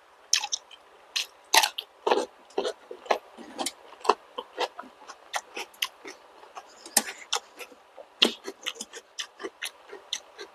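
A person chewing and biting balut (fertilized duck egg) with vegetables close to the microphone: quick, irregular wet mouth clicks, several a second.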